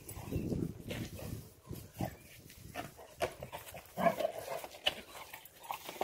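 Labrador vocalising low in its throat for the first second or so while playing with a plastic pot, then a series of short sharp knocks as the pot is carried and pushed over the ground.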